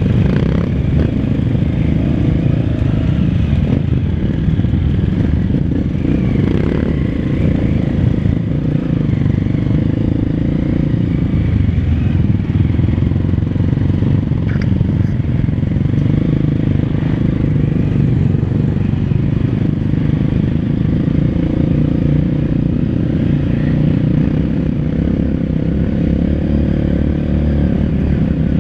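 Trail motorcycle engine running steadily at low trail speed, with clatter from the bike bouncing over a rough, rutted dirt track, heard close up from the rider's helmet.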